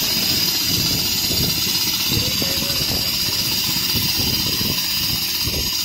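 Richpeace automatic pattern sewing machine running, its needle stitching rapidly through fabric clamped in the frame as the head travels across the work: a steady mechanical whir with a fast needle rattle and a constant hiss.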